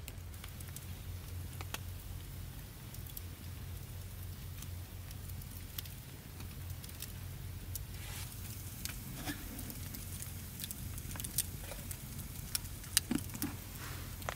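Firewood crackling in a small campfire, with scattered sharp pops and a few louder snaps near the end, over a steady low hum.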